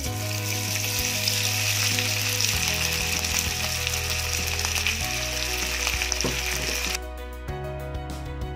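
Sliced raw beef sizzling in hot cooking oil in a frying pan, a dense steady hiss that starts as the meat goes in. The sizzle drops away about seven seconds in.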